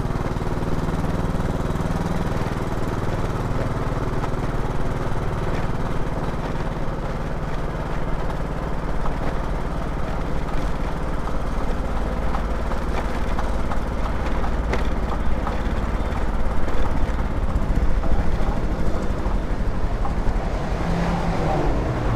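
Motor scooter's small engine running steadily while riding, over a low rush of wind and road noise; the engine note rises near the end.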